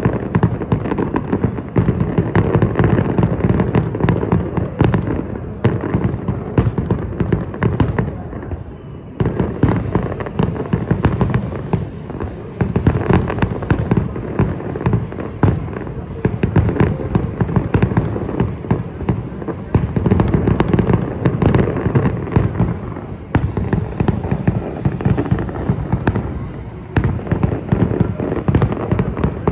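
Fireworks display: a dense, continuous barrage of bangs and crackles, easing briefly about eight seconds in before it picks up again.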